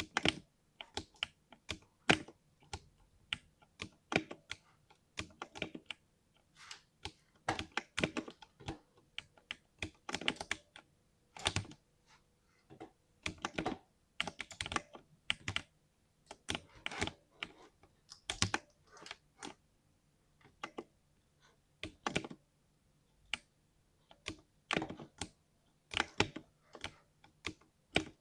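Typing on a 60% mechanical keyboard: irregular runs of keystrokes with short pauses between them.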